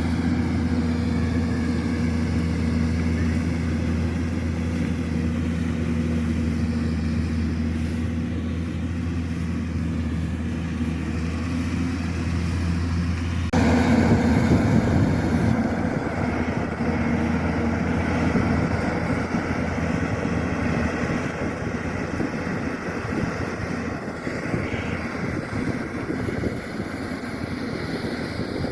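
Kubota DC-105X combine harvester's diesel engine running steadily under load. About halfway through, the sound changes abruptly to a rougher, noisier rumble.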